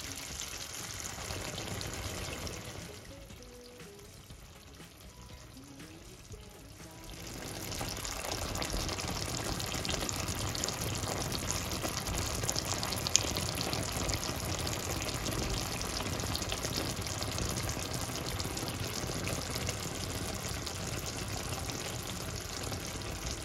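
Chicken curry sauce simmering and sizzling in a stainless steel pan, a steady crackly bubbling. It drops away for a few seconds and comes back louder about seven seconds in.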